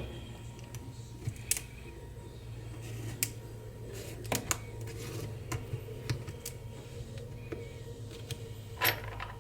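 Sparse light clicks and taps of small repair tools working on a smartphone during a screen replacement, about eight over several seconds, irregularly spaced, over a steady low hum.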